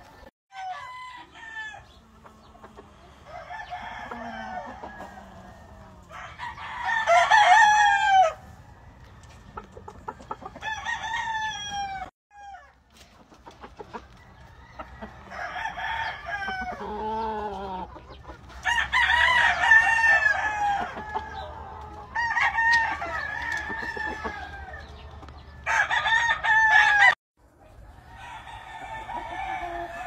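Several roosters crowing one after another, the crows overlapping, with clucking between them. The loudest crows come about a third of the way in and again past the middle.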